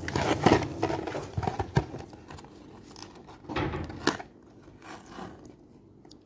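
Cardboard box being prised open by hand, with scraping, crinkling and small tearing sounds from its flaps and the packing tape that is shredding as it is pulled. The handling is busiest in the first two seconds, comes again in a short burst about three and a half seconds in, then turns faint.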